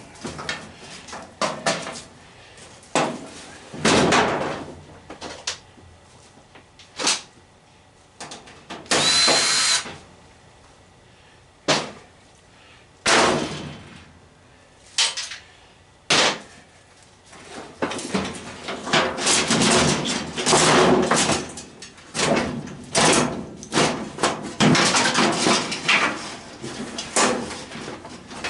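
Knocks, clunks and clatter of washing-machine parts and tools being handled during a teardown. About nine seconds in there is a short steady burst of noise, and the last ten seconds bring a dense run of knocks and scrapes.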